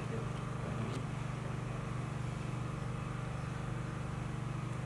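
A steady low mechanical hum, even throughout, with nothing else prominent over it.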